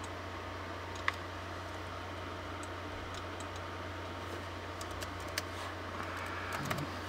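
A few scattered clicks of a computer keyboard, the sharpest about a second in and a small cluster near the end, over a steady low hum.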